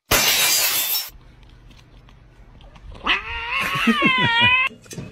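A cat yowling: one long, wavering cry of about a second and a half, starting about three seconds in. Before it, in the first second, comes a loud burst of rushing, hiss-like noise.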